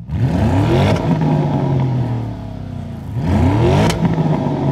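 The exhaust of a 2021 Porsche Cayenne GTS's twin-turbo V8 revved twice, each rev climbing quickly in pitch and dropping back. A sharp crack sounds at the top of each rev.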